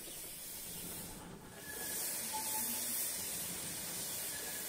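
Steady hiss of escaping steam from a steam locomotive, dipping briefly about a second in and then growing louder.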